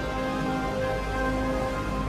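Orchestral film score holding long, sustained notes, over a steady hiss of storm wind and sea spray.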